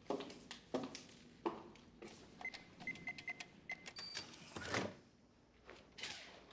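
Footsteps on a hard floor for the first second and a half. Then a wall-mounted electronic keypad beeps five times as its buttons are pressed, gives one higher confirmation beep, and a louder noisy thud follows about a second later.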